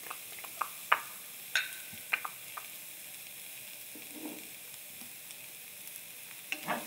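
Diced onions sizzling quietly in a hot, dry nonstick pan with no oil. A few sharp clicks come in the first couple of seconds as the onions are tipped in.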